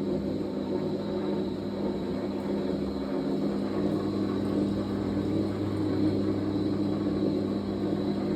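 Fisher & Paykel MW059NZ washing machine running through a blankets wash: a steady mechanical hum with a faint high whine.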